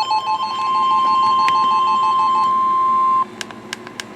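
NOAA Weather Radio 1050 Hz warning alarm tone, one steady electronic tone that cuts off suddenly about three seconds in, signalling that a warning broadcast follows. A two-pitch warbling electronic alarm beeps over it until about two and a half seconds in, and a few faint clicks follow the tone's end.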